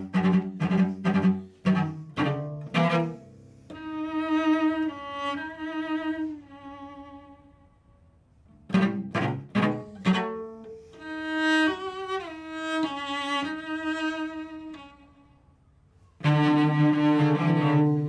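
Solo cello played with the bow. Loud, quick accented strokes open the passage and return about nine seconds in and again near the end. Between them come quieter held notes, with short pauses between phrases.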